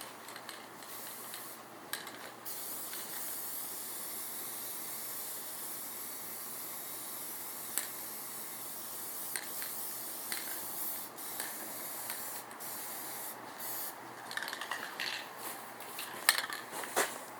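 Primer being sprayed onto tractor parts: a steady spray hiss that stops briefly a few times, with scattered clicks and knocks near the end.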